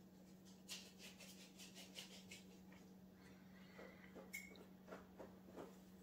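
Near silence: faint scattered clicks and taps of a plastic model tank turret with thin spaced-armor skirts being handled and turned in the fingers, over a low steady hum.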